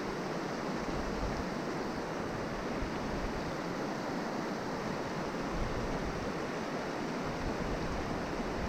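Steady rush of river current, an even hiss of flowing water with no breaks.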